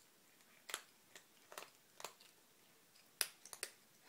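Cats crunching dry kibble from a bowl: about seven sharp, separate crunches at irregular spacing, the loudest a little after three seconds in.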